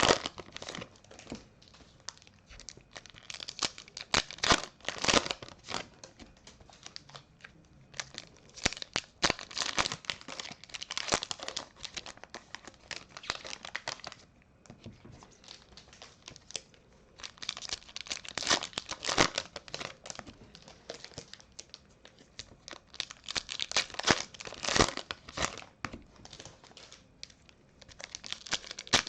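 A 2020 Bowman First Edition trading-card pack wrapper being torn open and crinkled, with the cards handled and flicked through, in crackling bursts separated by short pauses.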